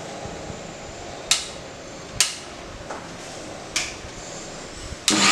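Several sharp clicks and knocks from the steel mixer-grinder jar and its lid under a hand pressing it down. Near the end, the mixer grinder's motor switches on with a sudden loud whir, blending the batter.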